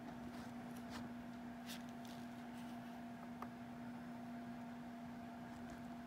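Quiet background with a steady low electrical hum and a few faint clicks, about a second, two seconds and three and a half seconds in.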